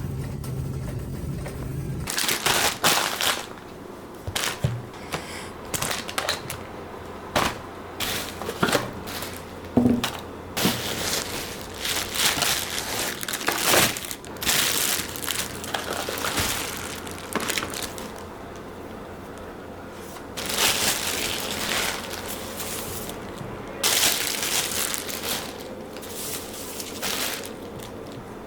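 Irregular bursts of crinkling and rustling from packaging being handled, preceded in the first two seconds by a steady low hum that cuts off.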